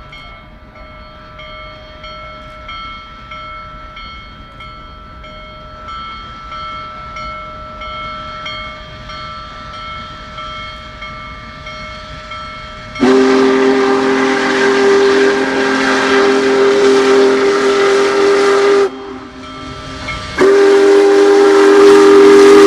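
Union Pacific Big Boy 4014's steam whistle. A fainter steady chord of tones gives way, about halfway through, to a sudden loud, hissing whistle blast of about six seconds, then a short break and a second long blast near the end.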